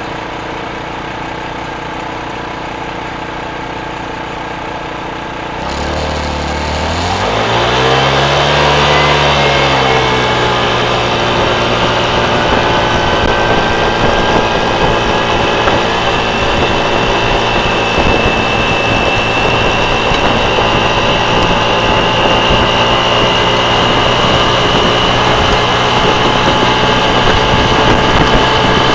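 Motorcycle engine idling, then about six seconds in the revs rise as it pulls away, and it settles into steady running with a rush of wind noise.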